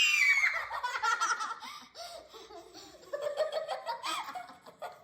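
A child's high-pitched scream that trails off within the first half second, followed by several seconds of children laughing.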